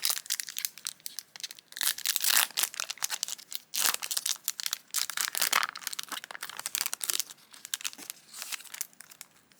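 Foil wrapper of a trading-card booster pack crinkling and being torn open by hand, in irregular crackly bursts.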